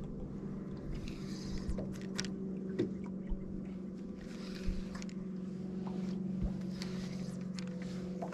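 Steady low hum of the boat's motor, with scattered light ticks throughout and a few brief patches of hiss.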